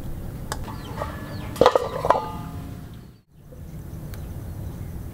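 Live mud crabs clattering in a metal pan: a few sharp clicks, then a quick cluster of clanks with a short metallic ring about two seconds in. After a brief drop-out, only a steady low background noise remains.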